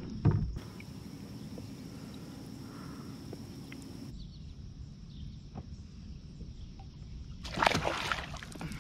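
A bass splashing hard at the surface as it is let go beside a kayak, a short loud burst about a second before the end. A single thump sounds just after the start, over a steady outdoor background.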